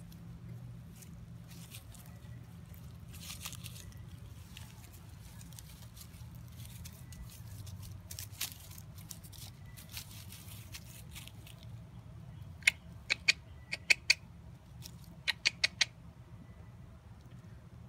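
Jack Russell terrier puppy scuffling and pouncing in leafy ground cover while playing with a hand. About two-thirds of the way through comes a quick run of about ten sharp clicks in three clusters.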